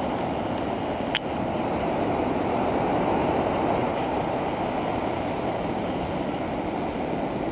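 Rough surf breaking and washing over a rocky shore: a steady rushing noise, with one sharp click about a second in.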